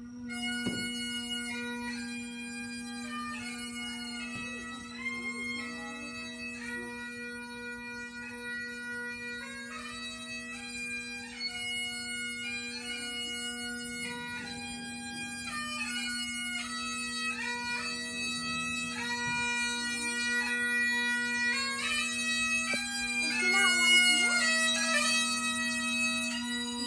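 Bagpipes playing a tune over one steady drone note, getting louder toward the end.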